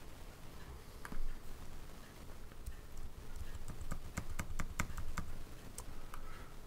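A computer keyboard key tapped over and over: one light click about a second in, then a fast run of light clicks for about three seconds.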